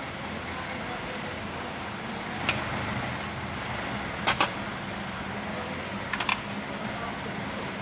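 Steady mechanical hum with a few sharp clicks: one about two and a half seconds in, a quick pair a little past four seconds, and another pair a little past six seconds.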